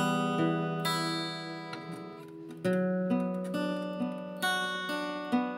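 Background music: a soft acoustic guitar track, plucked and strummed chords that ring and fade, moving to a new chord roughly every second.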